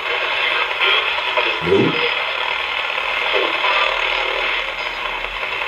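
Spirit box scanning radio frequencies: a steady hiss of radio static with brief broken fragments of sound.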